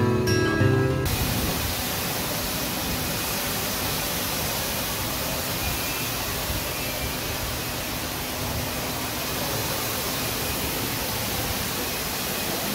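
Guitar music that cuts off about a second in. A steady, even rushing noise follows and runs on unchanged.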